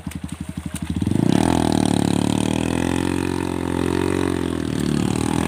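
Motorcycle engine idling with a fast pulsing beat, then revved hard about a second in and held at high revs, its pitch wavering.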